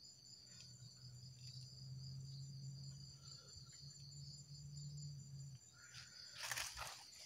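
Faint, steady high-pitched chirring of insects, held on several even tones, over a low hum that stops about five and a half seconds in. Near the end come a few crunching footsteps on dry leaf litter.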